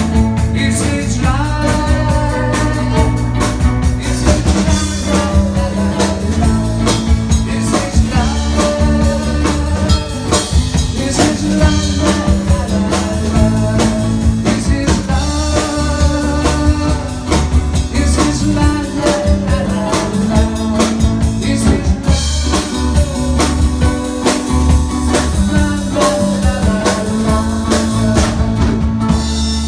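Live band playing a blues-rock number with a drum kit, steady bass notes and guitar, and a melodic lead line over the top.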